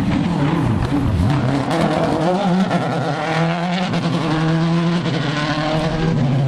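Rally car's engine running hard as it approaches, its pitch dipping and rising several times with lifts and gear changes, then held steady at high revs near the end.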